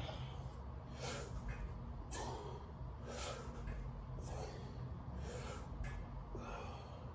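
A person breathing hard during sit-ups: a sharp, noisy exhale or gasp about once a second, in time with the repetitions, over a steady low hum.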